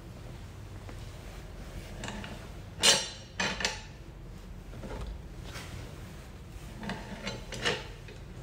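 Brass plumbing fittings being screwed together by hand: metal scraping and clinking as the threaded valve assembly is turned onto the pipe, with the sharpest clink about three seconds in, another just after, and one more near the end.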